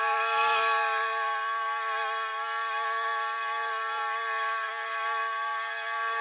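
Commercial walk-behind lawn mower running at steady speed while it cuts long grass: its engine and spinning blades make a constant whine of even tones over a hiss, with a brief swell of rushing noise about half a second in.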